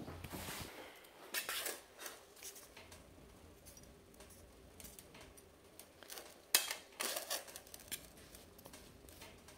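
A metal fork clinking and scraping against a metal camp pot as leafy greens are tossed in it, with a few sharp clinks about a second and a half in and again around six to seven seconds, and light ticks between.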